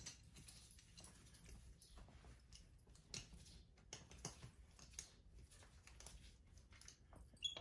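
Near silence with faint, scattered clicks and rustles of pajamas being handled and fastened on a baby monkey.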